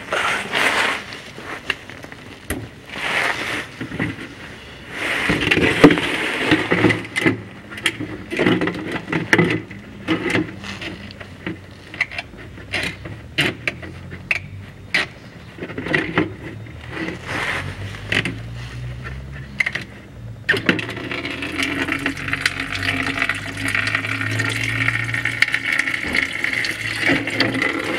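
Hands working the radiator drain plug of a 1996 Toyota Dyna, with scattered clicks and knocks. About two-thirds of the way through, antifreeze starts pouring steadily out of the copper radiator's drain.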